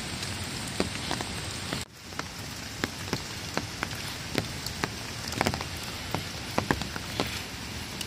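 Rain falling steadily in forest, with many individual drops ticking sharply and irregularly close by. The sound drops out for an instant about two seconds in.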